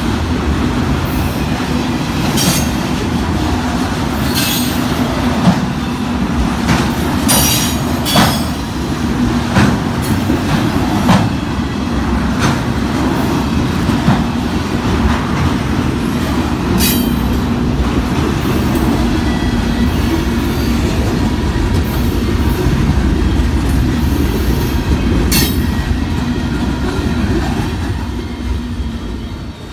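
Freight train cars rolling past at close range: a steady low rumble of steel wheels on rail, broken by irregular metallic clanks and bangs, with a faint wheel squeal now and then. The sound drops away near the end as the last car passes.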